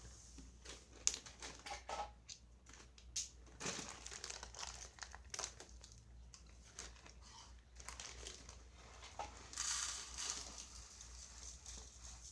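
Plastic salt bag crinkling and crackling in irregular bursts as it is handled and opened, with a denser rustle about ten seconds in.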